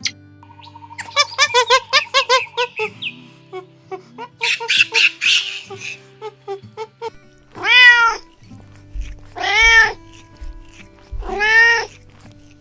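A cat meowing three times in the second half, each meow a single arched call about half a second long, over background music. Before the meows come a run of quick high chirping calls.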